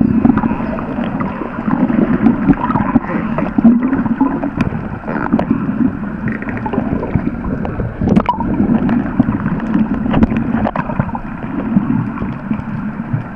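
Underwater rushing and gurgling water noise as the camera moves through the sea, with scattered sharp clicks and knocks, the loudest about eight seconds in.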